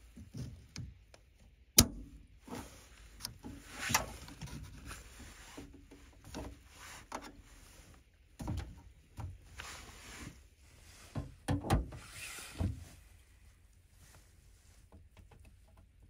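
Hands working the metal retaining clip and plastic water-filter housing of a Panasonic Aquarea heat pump: a sharp click about two seconds in, then scattered knocks and handling noise, with a cluster of clicks near twelve seconds.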